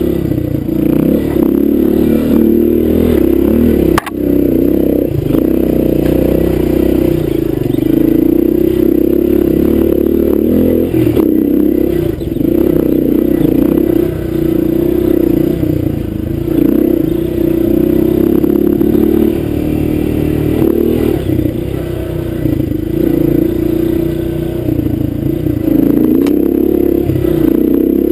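Honda dirt bike's engine running as it is ridden along a rough trail, the revs rising and falling with the throttle, with rattling and scraping from the bumps. A single sharp knock about four seconds in.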